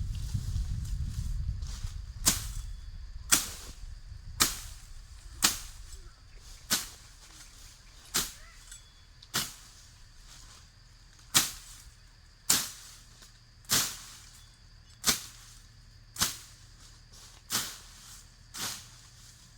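Sharp single strikes repeating roughly once a second, about fourteen in all, starting about two seconds in. A low rumble fades out over the first few seconds.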